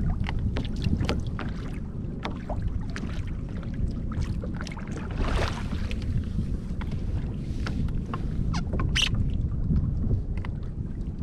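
Wind rumbling on the microphone over water lapping against a fishing kayak, with scattered small clicks and taps throughout and a sharper tick about nine seconds in.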